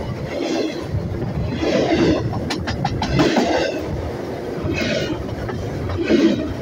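Train cars rolling over a camera placed on the track, the wheels clacking in a steady rhythm about every second and a half. There are a few sharp clicks about two and a half seconds in.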